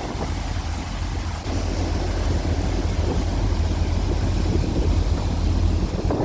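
Wind buffeting the microphone aboard the ferry Diagoras under way, over a steady low rumble from the ship.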